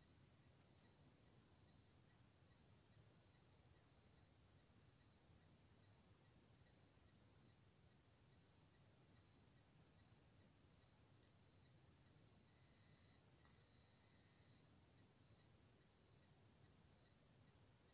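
Near silence: room tone with a faint steady high-pitched whine, overlaid by a faint, evenly pulsing higher tone. A single faint click comes about eleven seconds in.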